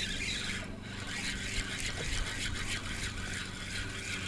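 Steady low hum of a boat motor, with a continuous hiss of wind and water over it.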